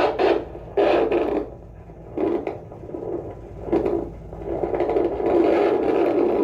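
Handheld fetal doppler's speaker giving irregular bursts of scratchy, rustling noise, the sound of the probe being shifted over the gelled belly. No steady heartbeat rhythm comes through.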